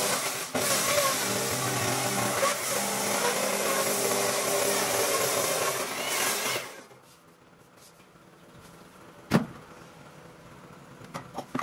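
A power tool works a wooden slab, running loudly and steadily, then stops about seven seconds in. One sharp knock follows a couple of seconds later.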